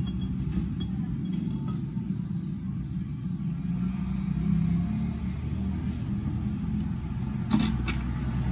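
A steady low rumbling hum, with scattered small clicks and taps of jeweller's pliers and tweezers handling the pieces. The sharpest clicks come in a cluster near the end.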